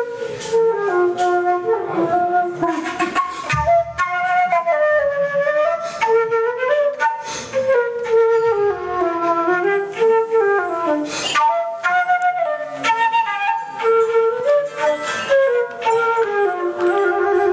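Flute playing a flowing melody, one line of notes moving up and down without pause.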